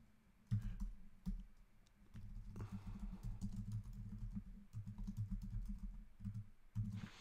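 Typing on a computer keyboard: a few separate key presses, then a quick, steady run of keystrokes from about two and a half seconds in.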